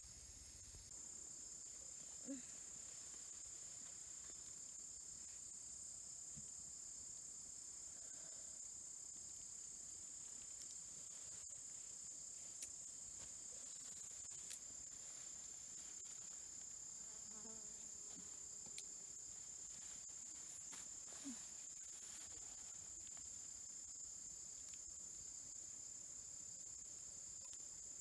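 Insects trilling in one steady, high, continuous chorus, with a few faint clicks here and there.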